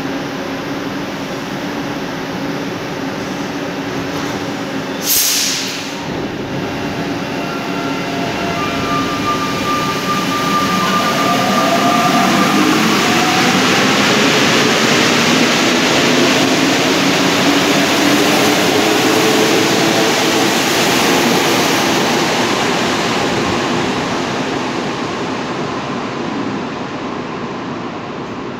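Rubber-tyred NS-93 metro train pulling out of the station. There is a short sharp hiss about five seconds in. Then the motors give a rising whine as the train accelerates, growing louder as the cars pass and fading as it leaves.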